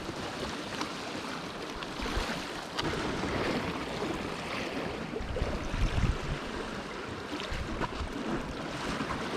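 Sea water washing and lapping at the shore, steady throughout, with low gusts of wind buffeting the microphone about two seconds and six seconds in.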